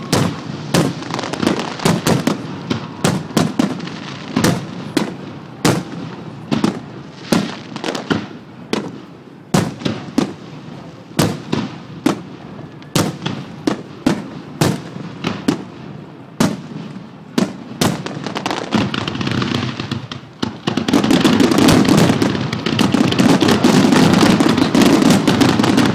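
Aerial fireworks shells bursting overhead, sharp bangs coming every half second or so. About twenty seconds in they run together into a continuous, louder barrage: the finale of the display.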